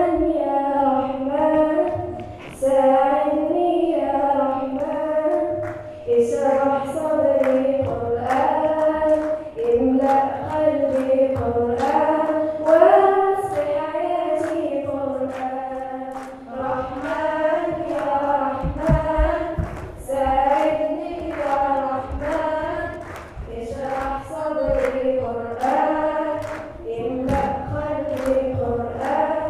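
A young girl singing a melody in phrases into a stage microphone, amplified through the hall's speakers. A few dull low thumps come about two-thirds of the way through.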